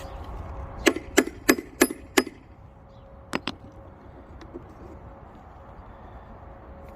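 Hammer striking a small steel pinch bar, five quick blows in a row, then two more close together, driving the bar in to snap a rounded-off screw that joins two wooden posts.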